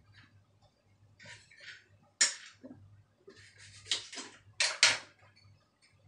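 Kitchen knife cutting a vegetable on a cutting board: a few sharp knocks of the blade reaching the board, one about two seconds in and a cluster near four to five seconds, with softer slicing scrapes between.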